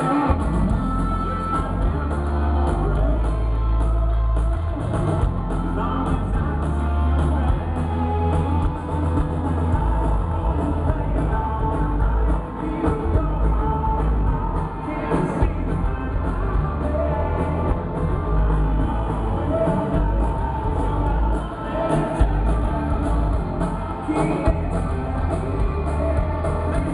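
A rock band playing live with a singer, heard from within the arena crowd: electric guitars, drums and a heavy low bass that fills the recording.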